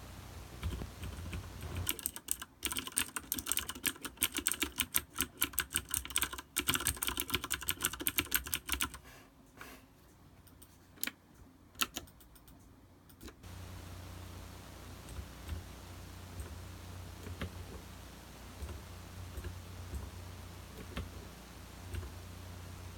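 Fast typing on a MantisTek GK3-61 mechanical keyboard with Cherry switches: a dense run of key clicks, then a few single keystrokes. After that only a low hum with occasional faint clicks remains.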